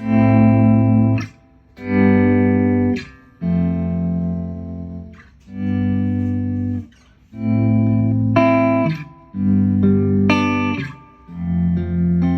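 Electric guitar played through a Boss SG-1 Slow Gear pedal switched on: a run of about seven chords, each held for about a second and a half and then cut off, with short gaps between them.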